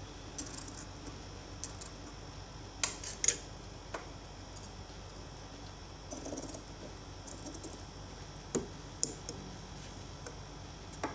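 Large steel tailor's shears snipping through cotton fabric in a few short, separate cuts, two close together about three seconds in, with soft rustling of the cloth between them.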